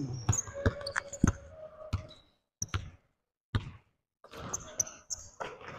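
Basketball bouncing on a hardwood gym floor, a string of separate bounces at uneven spacing through the first few seconds.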